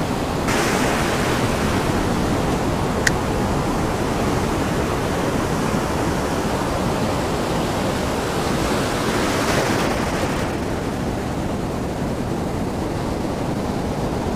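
Ocean surf washing over a shallow beach, a steady rush of foaming water that swells about nine seconds in and eases a little after. A brief click about three seconds in.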